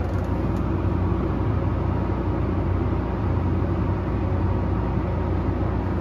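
Steady low engine drone heard inside a tractor cab, with a John Deere combine running alongside as it unloads milo into the grain cart on the go.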